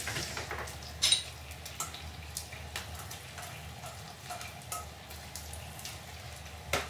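Canned mackerel in miso sauce sizzling in a hot frying pan, with a few sharp clicks and scrapes from a spoon against the tin can as the rest is scraped out.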